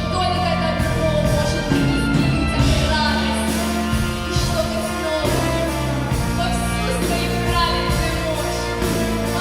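Female folk-style solo singing with orchestral accompaniment: the voice holds long notes with vibrato over sustained bass and band chords.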